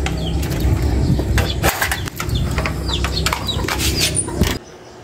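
Wind buffeting a handheld phone microphone outdoors: a steady low rumble with irregular rustles and bumps from handling. It cuts off sharply about four and a half seconds in.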